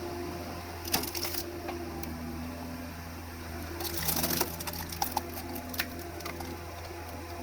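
Background music with two short bursts of wood cracking and splintering, about a second in and about four seconds in, as a firewood log splits apart on a skid steer log splitter's wedge.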